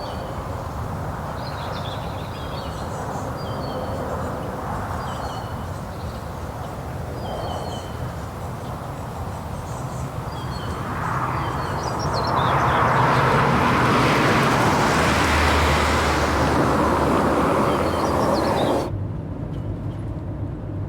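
Outdoor ambience with birds chirping and a car driving closer, its engine and tyre noise swelling to a peak from about halfway through. Near the end it cuts off abruptly to a steady low car-interior rumble.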